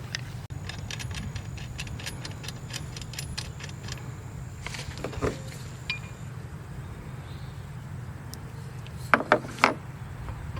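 Light metallic ticking and clinking, like keys or small metal parts being handled, with three sharper clinks near the end, over a steady low hum.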